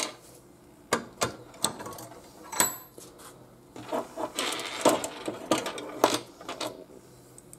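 Small metal clicks and knocks at a bench vise holding a cut-down stainless steel screw, one with a brief high ring, then a busier stretch of scraping and rattling in the second half.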